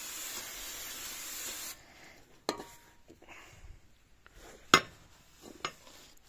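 Aerosol cleaner hissing steadily as it is sprayed onto a new brake disc, cutting off about a second and a half in. Then come three sharp metallic clinks as the disc is handled, the loudest about three-quarters of the way through.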